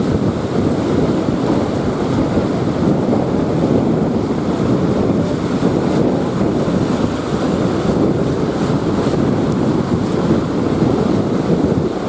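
Strong wind buffeting the microphone over the steady wash of rough surf breaking on rocks.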